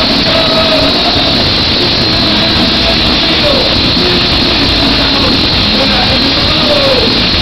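Loud live horror-punk band playing to a cheering arena crowd, recorded from the audience as a dense, distorted wall of sound with voices faintly audible through it.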